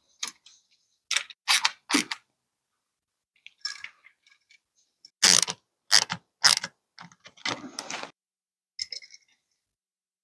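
A series of sharp mechanical clicks and scrapes in short clusters, loudest in a run of several strokes in the second half, typical of hand tools or metal hardware being worked.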